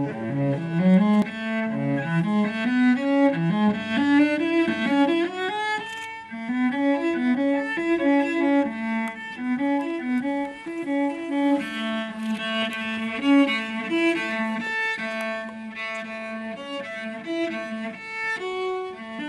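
Solo cello playing quick rising broken-chord figures, then a moving line over a low note that keeps coming back.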